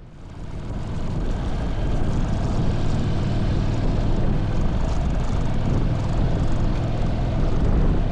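Motorbike engine running while riding, a steady low drone with rushing noise over it; it swells up from a brief dip at the very start.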